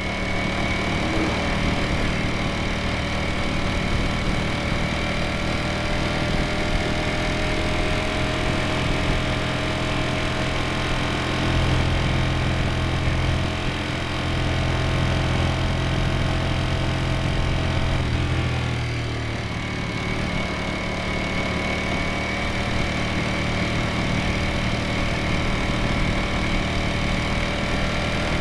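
Ducati Streetfighter V4S's V4 engine and exhaust running at steady riding revs. About two-thirds of the way through the revs dip briefly, then settle back to a steady note.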